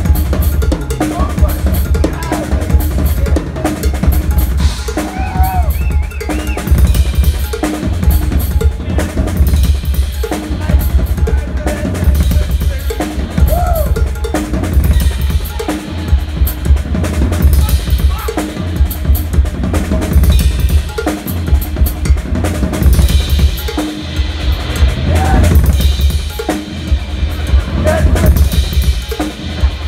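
Drum kit played live and busily: kick drum, snare, toms and cymbals in fast, dense patterns. Recorded on a cell phone, with a heavy, boomy low end.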